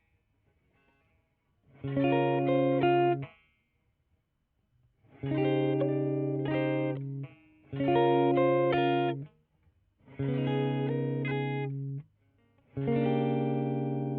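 Greco EG-550 electric guitar through a Peavey Vypyr VIP 2 modeling amp, strumming five short bursts of chords with short gaps between them. The last chord is left ringing and slowly fades.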